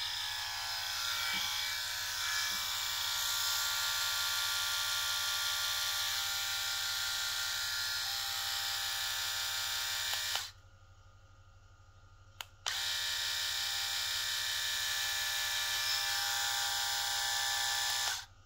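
Pritech RSM 1505 grooming set's trimmer running with a steady electric buzz for about ten seconds, then switched off. A click about two seconds later switches it on again, and it runs until just before the end.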